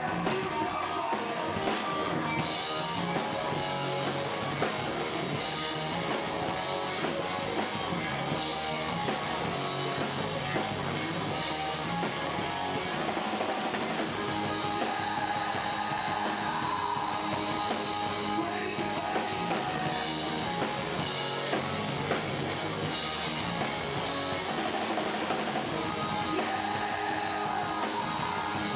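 Live rock band playing: electric guitars, bass and drum kit in full swing.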